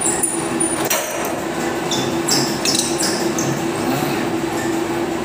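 Weight-room ambience with a steady hum, and several short metallic clinks of gym equipment about two to three seconds in, as cable-machine handles and weights knock.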